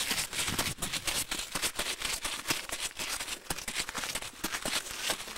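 Footsteps of several people walking across gravel and grass: a dense, irregular run of crunches and clicks.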